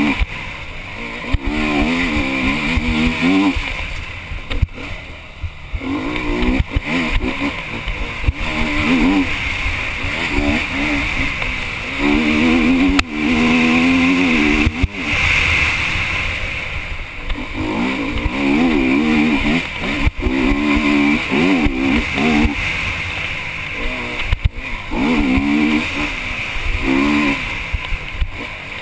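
Honda enduro motorcycle engine revving hard and dropping off again and again as the rider accelerates, shifts and brakes along the trail, heard from a helmet-mounted camera with wind rush and sharp knocks from bumps.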